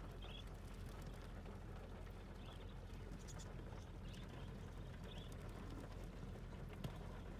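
Wild budgerigars landing and moving about on the car's bonnet and roof: scattered taps and scrabbles of their feet on the metal and glass, with a few short chirps, heard from inside the car over a low steady hum.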